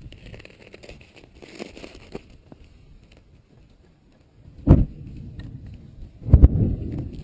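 Faint crackling and hissing from a slow-moving pahoehoe lava toe advancing over crust and plants, broken by two loud low thumps, one short about two-thirds of the way in and a longer, rougher one near the end.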